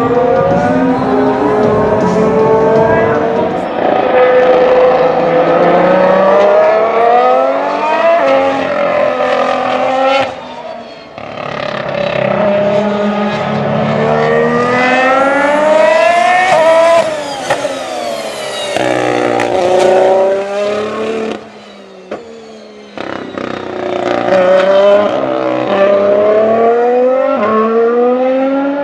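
Formula 1 cars' V6 turbo engines at full throttle, passing one after another. Each rises in pitch through the gears with sharp drops at the upshifts. The sound falls away briefly about a third of the way through and again about three quarters through.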